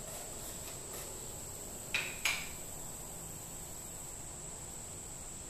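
Small clicks from hands handling a small container of Pyro Putty fire-starting putty: faint ticks, then two sharp clicks about a quarter second apart around two seconds in. Under them runs a steady faint hiss with a thin high-pitched tone.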